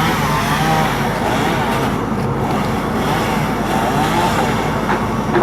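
An engine running steadily under a dense noisy background.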